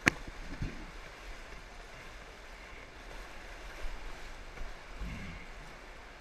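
Creek water rushing steadily around a kayak inside an arched tunnel, with a sharp knock just at the start and a smaller one about half a second later.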